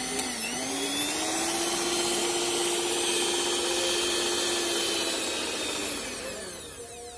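Miyako electric hand mixer running with its beaters spinning freely, a motor-and-gear whine that climbs in pitch over the first second or so, holds steady, then drops and fades as it winds down near the end. It is a test run of the mixer after its stripped drive gear was replaced.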